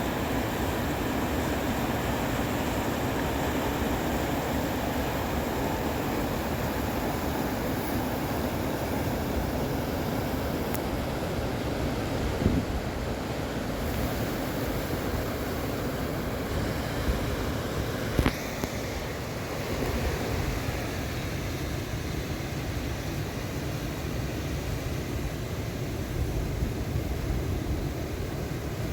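Lachine Rapids river water rushing in a steady, even noise, with a couple of brief knocks partway through.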